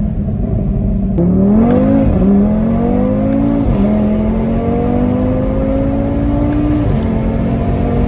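Audi RS3's straight-piped five-cylinder engine pulling through the gears. Its pitch climbs and drops back at each upshift, about four times.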